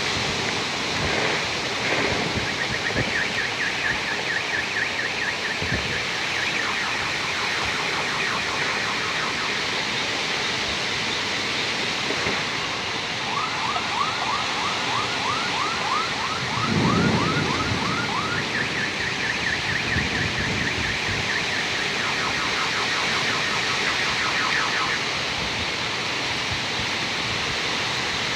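Steady hiss of rain falling, with an electronic car alarm going off over it, cycling through rapid repeating chirp patterns at different pitches. A short low rumble comes a little past the middle.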